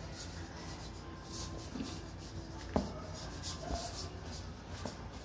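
Silicone spatula stirring and scraping flour-and-broth dumpling dough in a stainless steel mixing bowl: a run of soft rubbing strokes, with a sharper tap about three seconds in.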